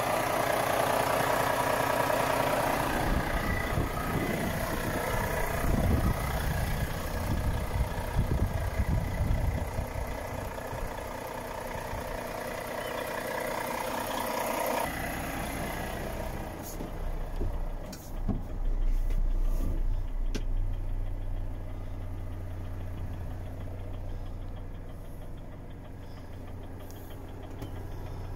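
Renault T 480 truck's six-cylinder diesel engine running. About halfway through the sound changes abruptly to a steadier, lower idle, with a few sharp clicks.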